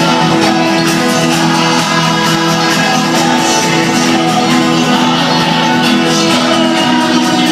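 Live folk-rock band playing an instrumental passage, with guitars and other plucked strings, steady and loud.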